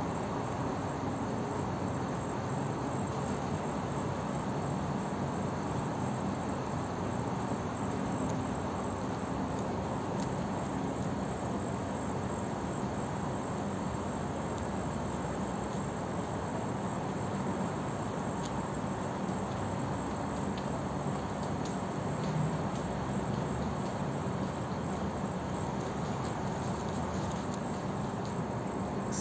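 Steady outdoor background noise with insects trilling continuously throughout.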